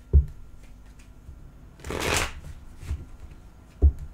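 A tarot deck being shuffled by hand: a papery rustle of cards about two seconds in, with a low thump just after the start and another near the end.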